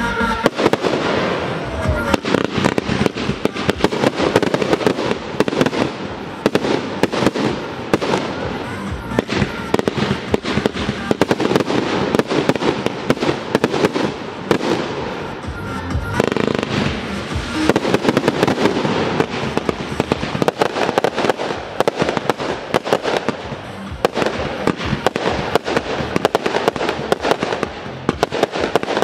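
Fireworks display: aerial shells bursting with a dense run of bangs and crackling, many reports a second, going on without a break.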